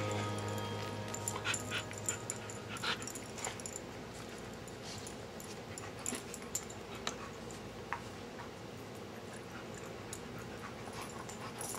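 A husky chewing and handling a beef-basted treat: scattered short clicks and crunches. Background music fades out in the first second or two.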